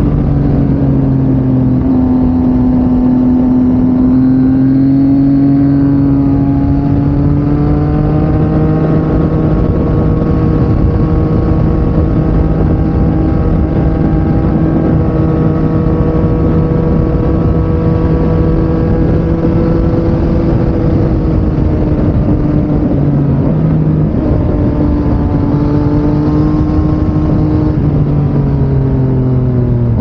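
Yamaha MT-09 inline-three with an Akrapovič exhaust under way, its engine note climbing slowly, holding steady, then dipping and shifting a few times near the end, over a constant rushing noise.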